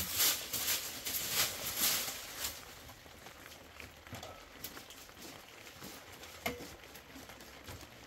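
Short straw hand broom sweeping dry leaves and debris over a dirt floor: brisk, scratchy strokes about twice a second for the first couple of seconds, then softer rustling with an occasional light click.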